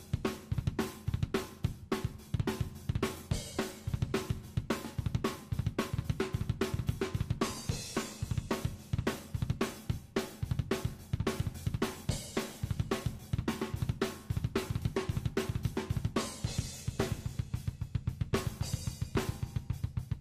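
Pearl drum kit played solo: a dense, continuous run of snare, tom and bass drum strokes, with cymbal crashes ringing out a few times, around the middle and near the end.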